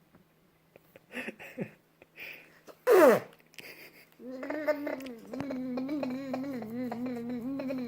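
A voice making non-speech sounds: a few short noises, a loud falling squeal about three seconds in, then a long drawn-out call with a wavering pitch held for nearly four seconds.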